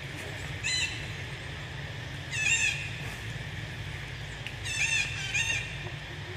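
Baby long-tailed macaque giving short, high-pitched, wavering squeals, four times, over a steady high hiss of forest insects.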